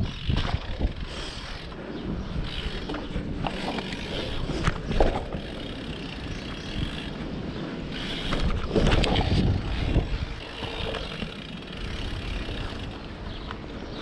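BMX bike rolling on pavement, tyre and hub noise with a few knocks, louder for a couple of seconds near the two-thirds point, with wind on the microphone.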